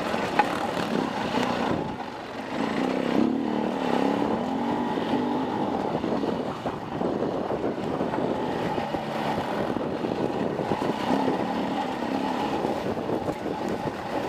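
Dirt bike engine running close to the helmet camera while riding trail, its revs rising and falling with the throttle. The revs drop briefly about two seconds in, then build again.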